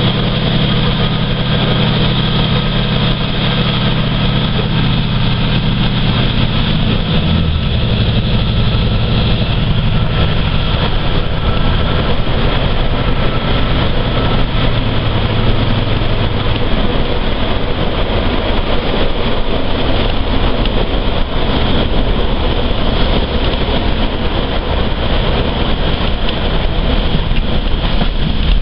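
Class 153 diesel multiple unit's underfloor Cummins diesel engine running, heard from inside the passenger saloon. Its note shifts about a quarter of the way through. In the second half the engine hum gives way to a rougher rumble of the train running along the line.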